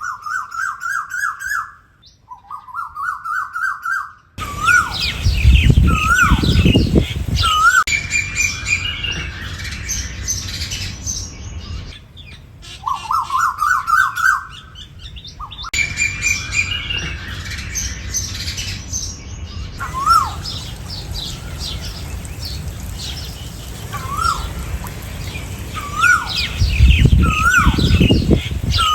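Asian koels calling: quick runs of rising notes that climb in pitch over a couple of seconds, alternating with single upswept whistles repeated every second or two. Smaller birds chirp high in the background, and low rumbles come twice.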